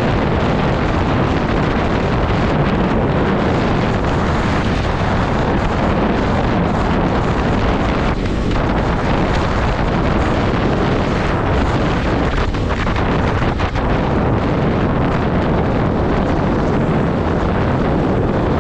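Steady wind rush over the microphone of a camera on a KTM sport motorcycle riding at speed on a wet road, with the bike running and its tyres on the wet tarmac underneath.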